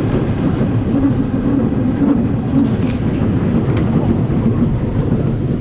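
Rumble of a wooden roller coaster train, Balder, running along its track, with wind buffeting the microphone: a loud, steady roar of noise.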